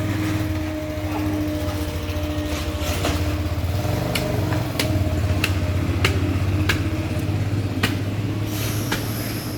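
Steady machine hum, with sharp knocks at irregular intervals of about half a second to a second.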